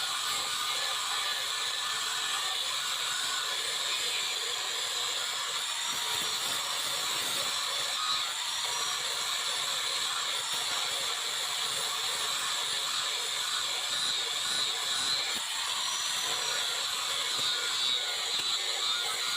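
Steady, high-pitched abrasive hiss of metal being worked on the rusty knife's steel, running without a break.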